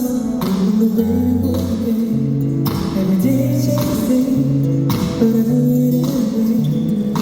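A live band song playing over a concert arena's sound system, with guitar, bass notes and drums, and a voice singing.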